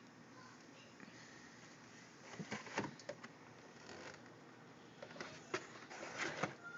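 Faint clinks and knocks of aluminium soda cans being handled and set down in a refrigerator: a cluster about two and a half seconds in and another from about five seconds in.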